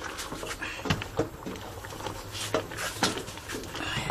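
A utensil knocking and scraping against a metal cooking pot as a stew is stirred, a few scattered clicks over a low steady hum.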